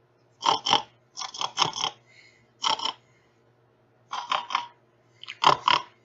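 A person making short, sharp snorting grunts in imitation of a pig, in about five quick groups of two to four.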